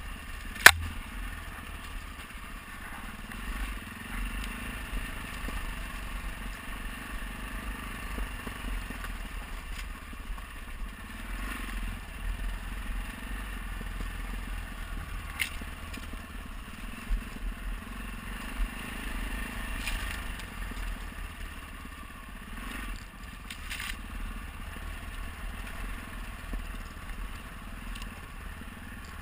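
Adventure motorcycle riding over a rough, rocky dirt track: the engine's steady low running mixed with tyres crunching over stones and clatter from the bike. A sharp knock about a second in is the loudest sound, with a few fainter knocks later.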